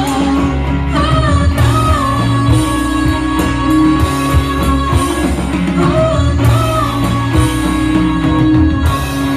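Rock music with guitar and a held, wavering sung melody over a steady bass line.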